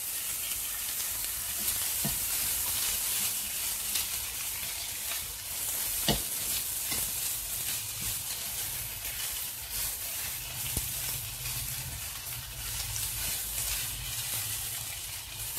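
Prawns, julienned carrot, capsicum and sliced onion sizzling in a wok over a high flame as a spatula stirs and tosses them, with scattered scrapes and taps of the spatula on the pan and one sharper knock about six seconds in.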